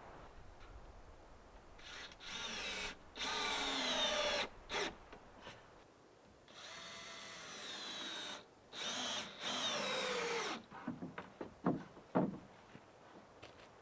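Power drill driving screws into pallet wood in several short runs, the motor's pitch sagging as it meets load. A few sharp knocks follow near the end.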